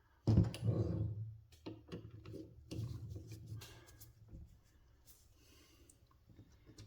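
Knocks, clicks and rubbing from small torque wrench parts being handled and greased on a workbench. A loud knock comes about a third of a second in, then scattered clicks and scraping that die down after about four seconds.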